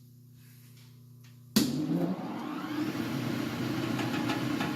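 Metal lathe switched on with a sharp click about a second and a half in, then running steadily.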